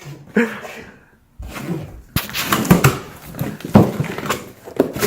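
Cardboard shipping box being opened and its contents handled: scraping and rustling broken by several sharp knocks.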